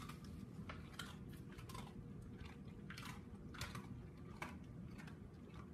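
A Siberian husky chewing a treat: a run of faint, irregular crunches.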